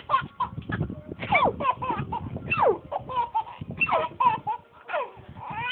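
A person laughing in a rapid string of short, high-pitched laughs, many falling in pitch.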